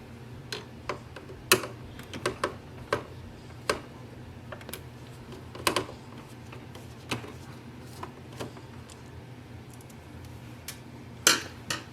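Irregular light clicks and taps of a screwdriver on small screws and the plastic parts of an Epson ET-2400 inkjet printer as the screws are taken out, with a louder plastic clatter near the end.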